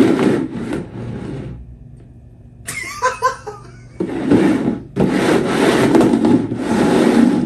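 Rustling and crinkling of snack packaging being handled, in short bursts at first and then steadily from about four seconds in.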